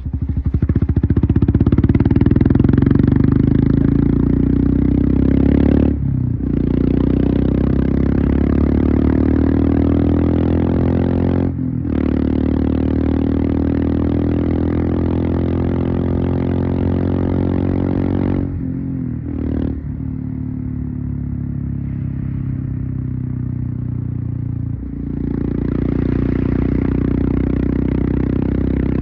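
Single-cylinder Royal Enfield Himalayan engine through a Devil Pro Evolution aftermarket exhaust, accelerating and climbing in pitch with brief dips at upshifts about 6 and 12 seconds in. Around 19 seconds in it eases off and runs quieter for a few seconds, then the rider opens the throttle again near the end.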